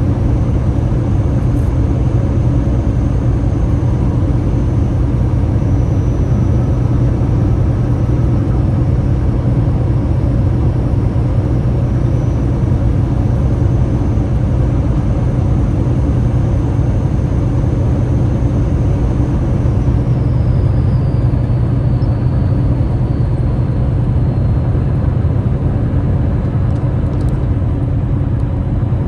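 Waterfall: a steady, loud, unbroken rush of falling water, heaviest in the low end.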